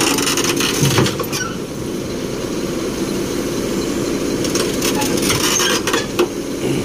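Kobelco SK220 crawler excavator's diesel engine running steadily on a trailer, with groups of sharp knocks near the start and again about two-thirds of the way through.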